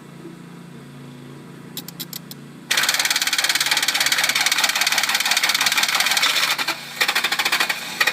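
A few sharp clicks, then the 2000 Toyota Tundra's starter motor suddenly cranking the engine in a fast, even chatter, dropping out briefly near the end and cranking again. The starter is engaging as soon as its relay is plugged in, with no turn of the key; the owner takes this for a sticking starter relay.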